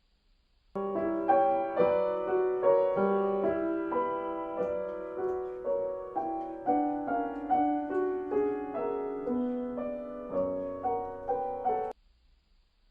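Piano playing a dense passage of quick notes and chords, mostly in the middle register. It starts abruptly about a second in and cuts off suddenly near the end.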